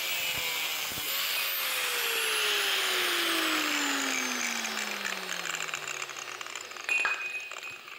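Angle grinder grinding the end of a mild-steel exhaust header tube, a steady hissing grind. From about a second in its pitch falls steadily as the grinder is switched off and winds down, fading toward the end, with a short metallic ring about seven seconds in.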